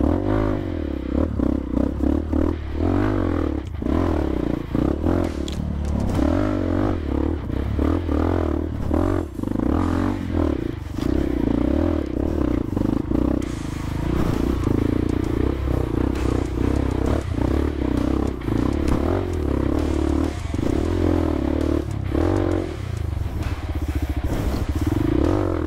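Honda CRF150L dirt bike's single-cylinder engine running hard and revving up and down as it climbs a slippery clay track, with clattering and scraping knocks throughout.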